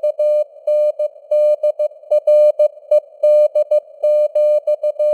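Morse code (CW) at 15 words per minute: one single-pitch beep keyed on and off in short dits and longer dahs, sent over a band of simulated radio hiss that sits around the tone's pitch.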